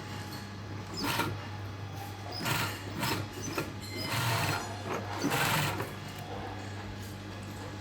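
Sewing machine stitching in several short runs over a steady low hum.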